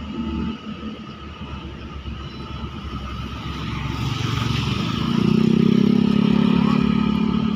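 A motor vehicle engine that grows louder about halfway through and stays at its loudest to the end, over a steady background hum.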